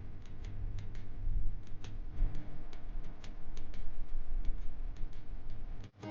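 Wind rumbling on the microphone, with a string of sharp, irregularly spaced clicks, several a second. Both cut off suddenly near the end.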